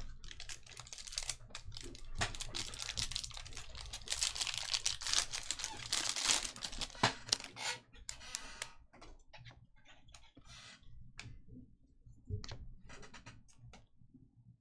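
A trading card pack's wrapper being torn open and crinkled, a dense crackling that lasts about six seconds, followed by scattered light clicks and taps.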